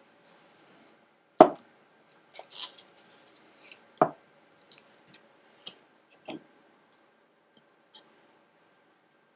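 Pen and paintbrush working ink onto sketchbook paper: short light scratching strokes with a few sharp taps, the loudest about a second and a half in and others near four and six seconds.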